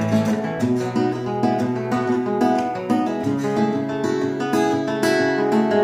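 1967 Martin 0-18 steel-string acoustic guitar, in drop D tuning with a capo at the second fret, played fingerstyle: a steady picked pattern of treble notes over a bass line. The bass note changes about a third of a second in and again near the middle.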